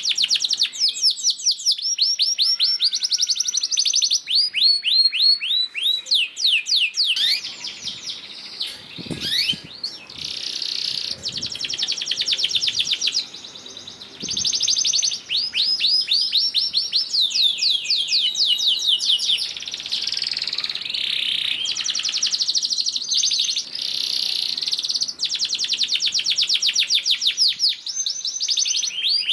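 Male domestic canary singing a long song of fast trills: runs of rapidly repeated high notes and rolls, with a few short breaks.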